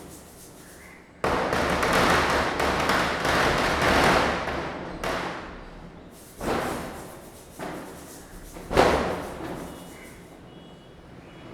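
Diwali firecrackers bursting. About a second in, a rapid run of cracks and bangs goes off for about four seconds. Then come four separate bangs a second or so apart, each echoing away, the last one the loudest.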